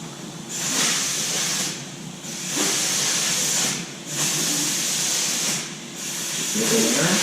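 Compressed air hissing in four bursts of about a second each, with short pauses between them.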